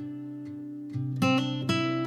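Acoustic guitar music: a held chord rings for about a second, then fresh plucked notes come in.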